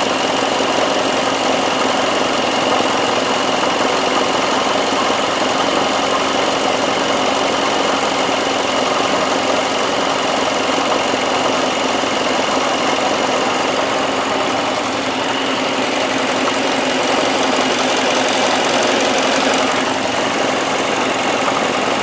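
Chevrolet HHR's Ecotec four-cylinder engine idling steadily with the cooling system open, left running so trapped air purges out of the coolant after a drain and refill.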